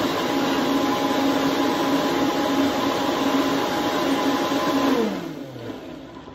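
Vitamix blender running steadily at high speed, blending chickpeas and their liquid into hummus. About five seconds in it is switched off and the motor winds down with a falling pitch.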